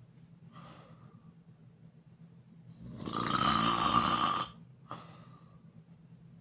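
A person snoring: a faint breath near the start, then one loud snore about three seconds in that lasts about a second and a half, followed by a short, fainter exhale.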